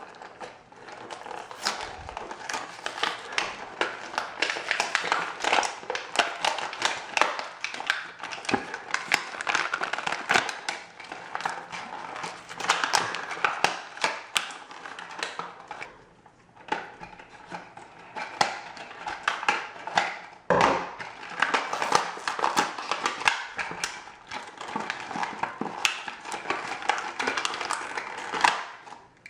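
Crinkling and crackling of plastic packaging torn and peeled open by hand: a dense run of crackles, with a short pause a little past halfway.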